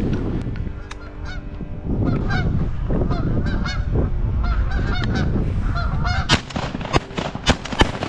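Canada geese honking repeatedly as a flock flies over, followed near the end by several shotgun blasts in quick succession.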